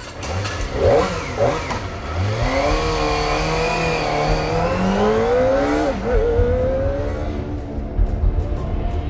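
Kawasaki ZX-25R's 250 cc four-cylinder engine revving, with two quick blips near the start and then a long rise in pitch as it accelerates. The pitch drops sharply about six seconds in, then climbs again.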